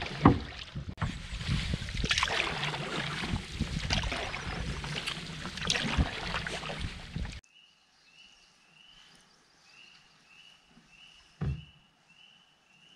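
Canoe paddling: paddle strokes swishing and splashing in the water, with a sharp knock just after the start. About seven seconds in this cuts off abruptly to a much quieter scene, where a short, high, rising chirp repeats a little faster than once a second and one low thump sounds.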